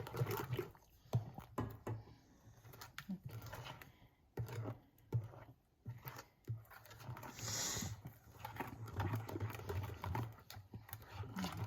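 Utensil stirring batter in a bowl, with irregular light taps and clicks against the bowl as lumps are broken up, and a brief hiss about seven and a half seconds in.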